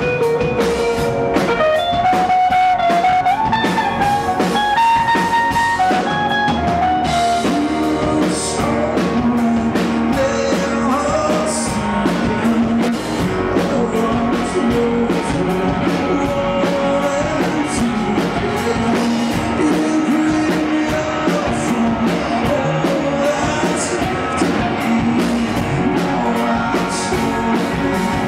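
Live rock band playing: an electric guitar line stepping up in pitch at first, then drums and cymbals come in harder about seven seconds in, with a man singing over the band.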